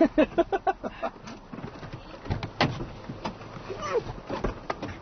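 Van door being opened from inside: a few sharp clicks and knocks about two and a half seconds in, with brief voices near the start and again near the end.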